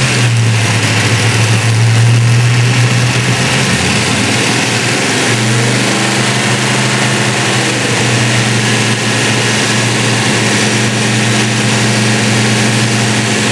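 Carbureted 357 cubic-inch LT1 small-block Chevy V8 running steadily and loudly on an engine dyno while its ignition timing is checked with a timing light; the engine note settles slightly lower about four seconds in.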